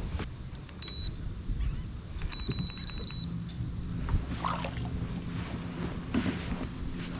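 Electronic beeps, a short one and then a quick series, then a low steady hum as the kayak's battery-powered electric motor starts running, over wind and water noise.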